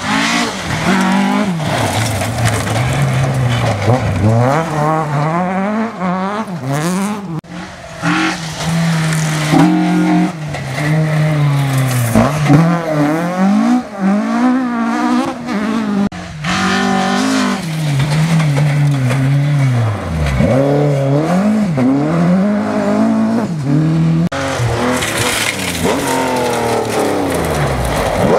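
Historic rally cars, among them a Mk2 Ford Escort, driven hard one after another on a gravel stage. The engine notes rise and fall again and again as the drivers change gear and lift for the bends.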